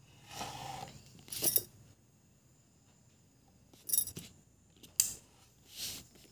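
Handling noise of a camera moved over a book: a soft rustle, then four short sharp clicks and scrapes about a second apart.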